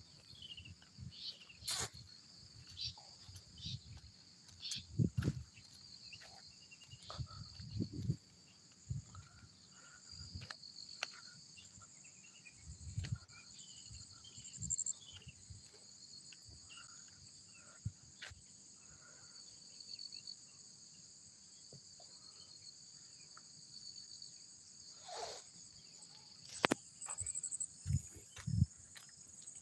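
A steady, high-pitched insect chorus chirring in grassy fields, with scattered low thumps and a few short chirps over it.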